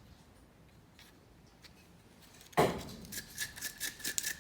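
A quiet stretch, then a sudden sharp knock about two and a half seconds in, followed by quick, irregular scratchy strokes of hand-sanding on the play-button piece.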